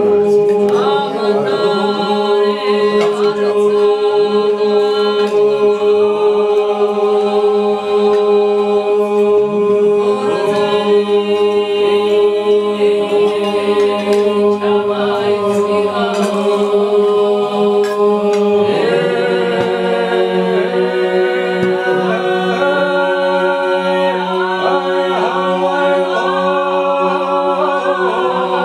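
Men's voices singing Georgian polyphonic song a cappella: a steady, held bass drone under several upper voices that weave and bend above it. The chord shifts to a new pitch about two-thirds of the way through.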